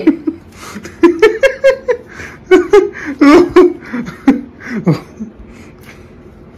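A woman laughing and giggling in short bursts, dying down near the end.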